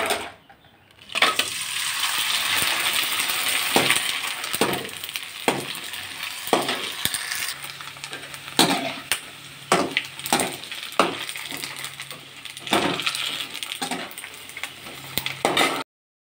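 Rice-flour vathal puffing and sizzling in hot oil in a metal pan, a steady frying hiss that starts about a second in, with repeated clinks of a slotted metal spoon against the pan. It cuts off suddenly near the end.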